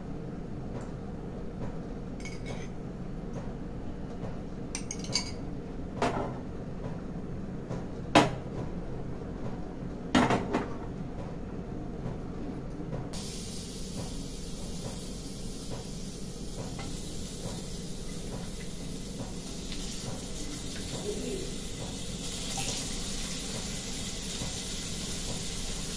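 A metal spoon and utensils clink against a nonstick frying pan and dishes a few times, the loudest about eight and ten seconds in. About halfway through, a steady high hiss of potato slices frying in hot oil sets in and carries on to the end.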